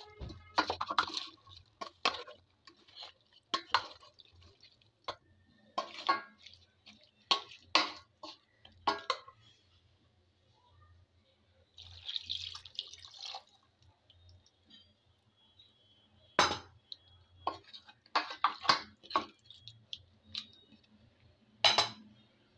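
Spoon stirring and scraping raw spiced chicken in a pot, with short clinks and knocks against the pot. About twelve seconds in, a cup of water is poured in, splashing for about a second and a half, and then a few more clinks follow.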